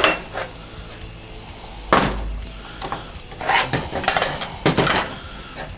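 Metal transmission parts knocking and clinking as the clutch pistons are worked out of their drums. There is one sharp knock with a dull thud about two seconds in, then a run of clinks and rattles with a bright ring near the end. Faint music plays underneath.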